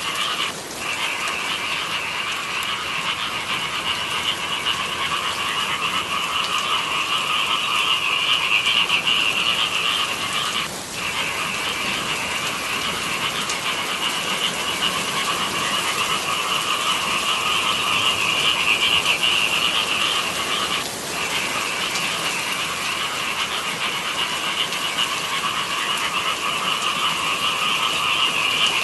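A dense chorus of frogs calling continuously, many voices overlapping into a steady trilling mass. It briefly falls away three times, about every ten seconds.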